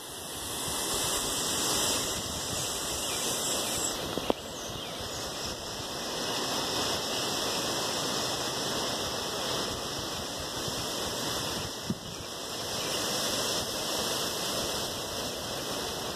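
Steady outdoor hiss, brightest high up and slowly swelling and easing, with a faint click about four seconds in and another near twelve seconds.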